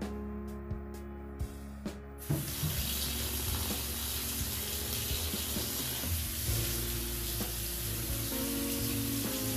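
Tap water running onto cooked macaroni in a metal colander in a stainless-steel sink, rinsing the drained pasta. The steady splashing hiss starts about two seconds in, over background music.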